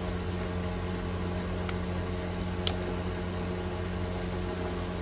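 A steady low background hum, with a few faint soft clicks and squishes as a flexible silicone mold is bent and peeled away from cured resin pieces; the clearest click comes about halfway through.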